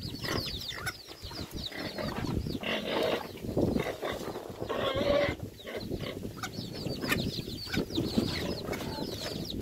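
Chickens feeding on moistened cracked corn, with chicks giving many short, high, falling peeps and hens clucking; two brief rustles near the middle.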